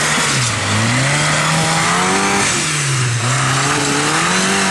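Off-road trial 4x4's engine revving hard in surges under load as it climbs over rocks: the pitch climbs, drops back and climbs again about three times.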